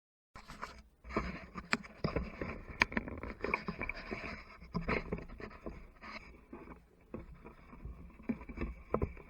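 Hand tool digging in earth: irregular scraping with sharp knocks.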